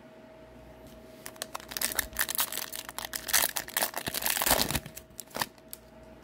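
Crinkling and tearing of a foil trading-card pack wrapper as it is ripped open and the cards are slid out. The crackle starts about a second in, is loudest in the middle and stops shortly before the end. A faint steady hum runs underneath.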